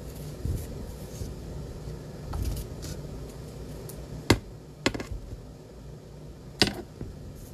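Hands handling objects at a desk: a few sharp taps or clicks, a single one about four seconds in, a close pair just after, and another near the end, over light rustling and a low steady hum.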